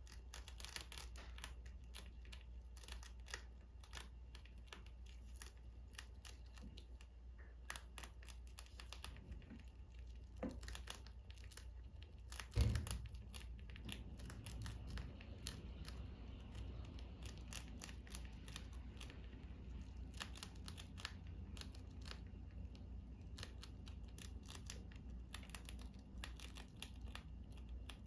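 Two pet rats chewing and nibbling food held in their paws, a close, continuous run of quick, crisp clicks and crackles from their teeth. One thump about halfway through.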